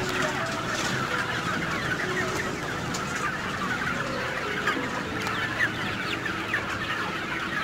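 A large flock of broiler parent-stock hens and roosters clucking and calling all at once, a dense, steady chatter of many short overlapping calls.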